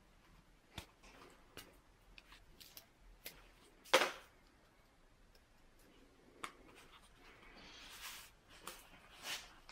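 A sheet of gasket paper being handled and moved about on newspaper: scattered light clicks and short rustles, with a louder rustle about four seconds in and more rustling near the end.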